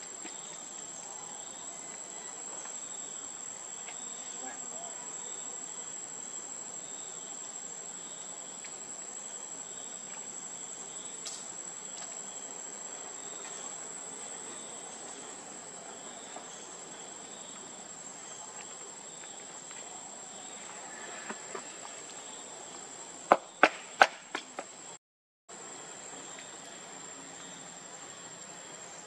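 Steady high-pitched drone of forest insects, with a softer chirp repeating under it. A few sharp clicks about 23 to 24 seconds in are the loudest sounds, and the sound cuts out briefly soon after.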